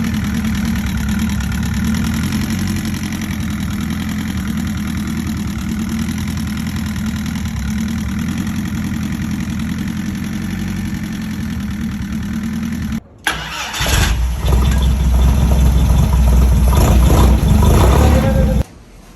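Air-cooled VW Beetle flat-four engine running through a new muffler, steady at first, then, after a brief break about 13 seconds in, louder until it cuts off near the end. The owner says the engine still has a knock he puts down to a connecting rod or a wrist pin.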